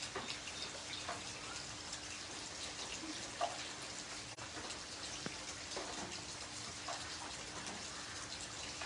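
Rain falling steadily on wet concrete ground, with many individual drops splashing.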